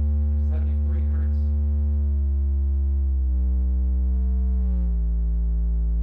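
Monoprice Monolith 10 subwoofer playing a steady sine test tone, with faint overtones, that steps down in pitch every second or two, from about 73 Hz to about 55 Hz. It is a slow step-down sine check for enclosure resonance, lead slap and port chuffing.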